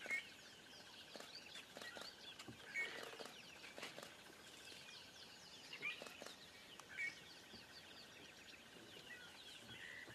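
Wild birds calling outdoors: about four loud, short calls a few seconds apart over a constant chorus of quick, high chirps and a steady trilling note.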